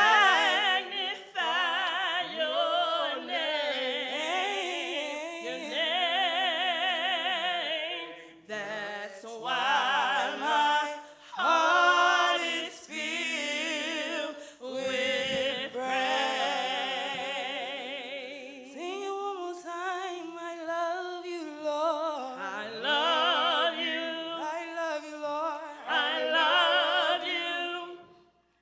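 Gospel praise singers singing a worship song, with strong vibrato and long, ornamented held notes, in phrases broken by short breaths.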